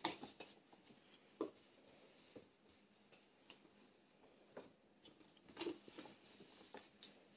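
Near silence, broken by a few faint short crinkles of a foil food-storage bag being handled while its top is clamped shut with a hair straightening iron.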